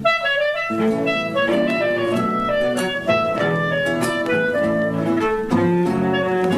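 Instrumental tango music with strings and double bass, no singing. The low bass line drops out for a moment at the start and comes back in under a second later beneath the melody.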